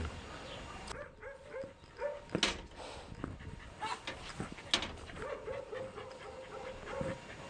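A dog barking in quick runs of short barks, with a couple of sharp knocks in between.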